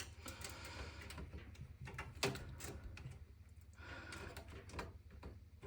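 Faint handling sounds of a desktop PC case: a few light clicks and knocks, the sharpest about two seconds in and again near the end.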